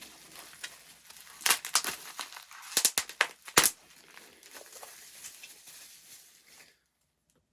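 Packaging crinkling and rustling as bottles are handled and unwrapped, with several sharp clicks mixed in; it stops abruptly about a second before the end.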